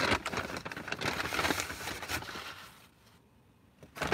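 Paper fast-food bag rustling and crinkling as food is taken out of it, a rapid crackle that dies down about three seconds in.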